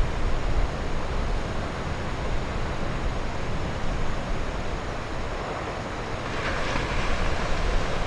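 Heavy storm surf rumbling and crashing on the shore, with wind buffeting the microphone. A breaking wave's hiss swells about six and a half seconds in.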